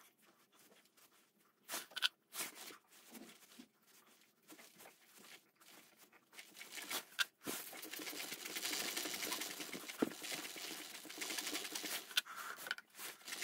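A brush dabbing lubricant onto a pit bike's O-ring drive chain, with soft scratchy strokes and small clicks. About seven and a half seconds in, the rear wheel is spun and the freshly oiled chain runs steadily over the rear sprocket with a light, even whirr.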